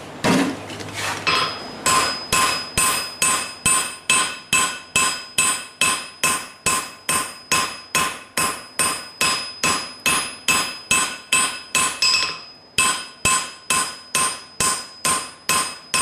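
Hand hammer striking a glowing forge-welded cable billet on a Peter Wright anvil, drawing the steel out into a blade. A few light taps start it, then come steady blows about three a second, each with a bright metallic ring, with a brief pause about three-quarters of the way through.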